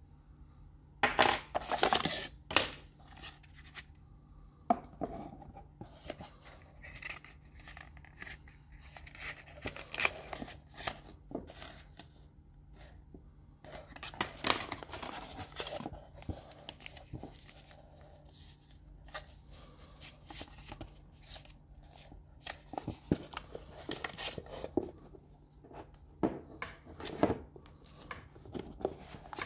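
Handling noise of a cardboard smartphone box and its accessories: irregular taps, scrapes and rustles as a plug adapter is held up, the box's inner tray is lifted out and the box is set down and closed, with the loudest clatter about a second in and again about halfway through.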